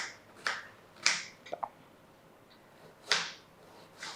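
Kitchen knife chopping an onion into small pieces on a cutting board: sharp knocks about every half second in the first second or so, a couple of light clicks, a pause, then another stroke about three seconds in and a softer one near the end.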